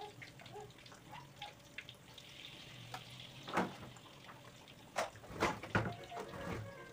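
Tempeh slices frying in hot oil in a wok, a steady sizzle, with a few sharp knocks of a kitchen utensil, the loudest in a cluster about five to six seconds in.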